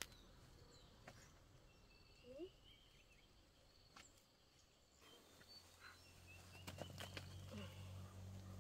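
Near silence: faint rural outdoor ambience with faint bird chirps and a few light knocks. A low steady hum comes in about halfway through.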